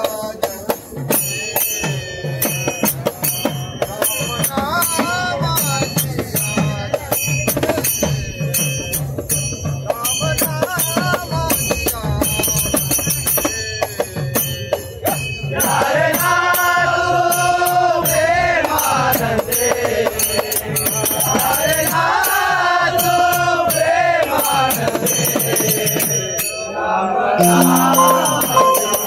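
A group of men singing a devotional bhajan: a lead voice over a fast, steady beat of jingling metal percussion, with the voices rising louder in long held notes from about halfway through.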